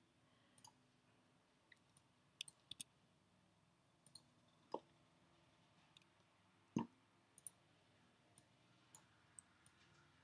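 Scattered faint clicks of a computer mouse and keyboard keys, irregularly spaced, with two fuller clicks near the middle.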